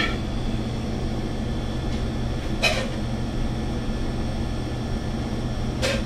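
Steady low hum of running kitchen machinery, with two brief sounds standing out, one near the middle and one near the end.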